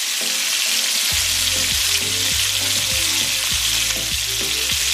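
Two bone-in steaks sizzling and frying steadily in a hot grill pan on a high burner, seared side down after being turned. About a second in, background music with a steady beat comes in under the sizzle.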